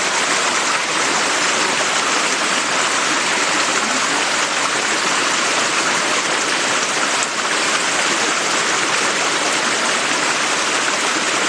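Rushing stream water, a steady even rush of noise.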